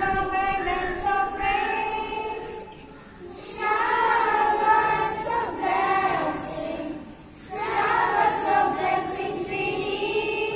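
A small group of schoolgirls singing a prayer song together, in long held phrases with a short break about three seconds in and another about seven seconds in.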